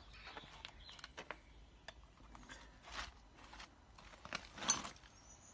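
Hand tools being handled and packed away: scattered light clicks and knocks, with one louder knock near the end.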